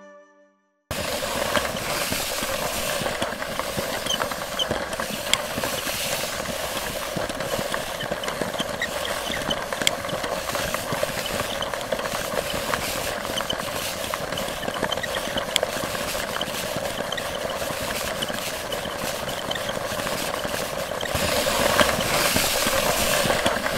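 A steady crackling hiss, a dense noise sprinkled with small clicks and with little bass, that cuts in abruptly after a second of silence and gets louder a few seconds before the end.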